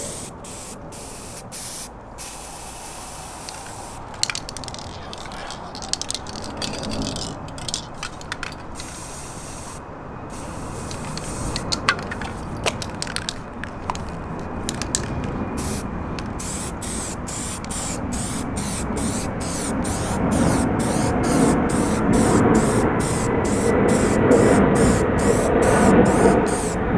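Aerosol spray paint can hissing in short, repeated bursts as gloss black is sprayed on, with the can running low. Near the end the bursts come quickly, about two a second, over a low rushing noise that grows louder.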